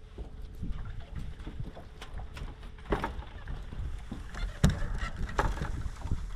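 Low wind rumble on the microphone aboard a fishing boat, broken by three sharp knocks on the boat, the loudest about two-thirds of the way through.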